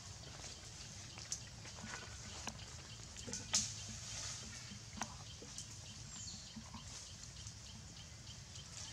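Outdoor ambience with a low steady rumble and scattered small clicks and rustles. One sharp snap about three and a half seconds in is the loudest sound.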